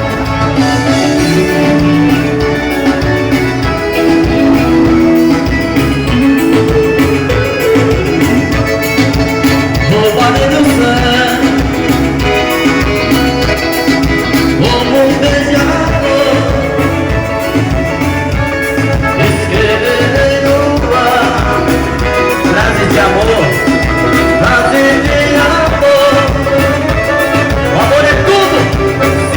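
Forró band music with a steady, even beat.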